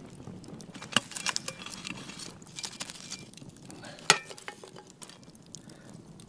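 Burning coals shovelled onto the cast-iron lid of a Dutch oven: a metal shovel clinks and scrapes on the iron among scattered small knocks. The two loudest knocks come about one second and about four seconds in, the second ringing briefly.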